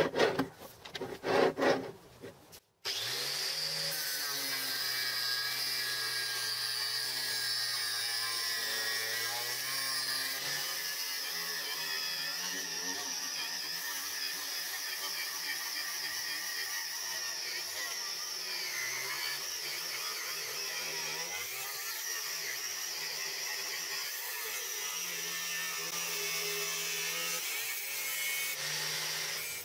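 Angle grinder with a cutting disc running and cutting through a rusty steel plate as it is pushed along an angle-iron guide rail: a steady high whine with grinding hiss. Before it, a couple of seconds of knocks and handling, cut off abruptly.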